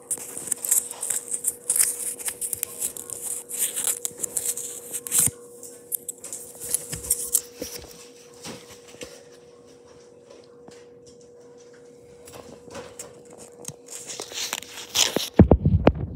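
Rustling and crinkling of packaging during an unboxing, with scattered clicks and taps over a faint steady hum, quieter for several seconds in the middle. Near the end a loud low rumble takes over.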